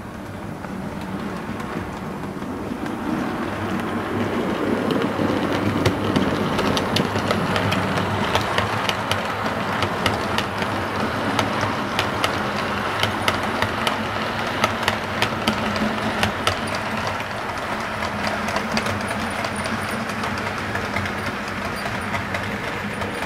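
OO gauge model train running past along the layout's track: a steady hum and rolling noise with many sharp clicks of the wheels over rail joints. The noise builds over the first few seconds, the clicks are thickest through the middle, and it eases a little toward the end as the train moves off.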